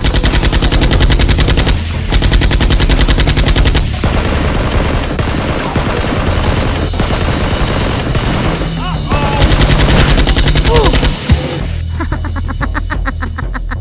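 Dubbed-in automatic gunfire sound effect, rapid shots in two long bursts: one at the start lasting about four seconds, and another from about halfway that stops sharply about three-quarters of the way through. Background music plays under it.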